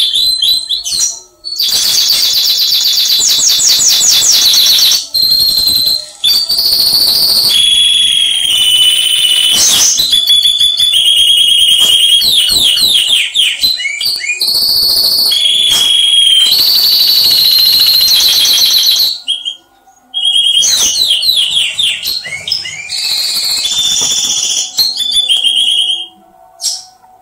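Recorded songbird song played loudly through a homemade bird-training (masteran) speaker box with a tweeter: rapid high whistled trills and repeated chirps in quick phrases. There are short breaks about a second in and about two-thirds of the way through, and it drops away near the end.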